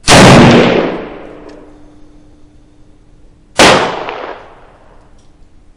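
Two single shots from a semi-automatic Arsenal SLR-101S milled-receiver AK rifle in 7.62x39mm, about three and a half seconds apart, each a loud crack that rings off for about a second under the covered range roof.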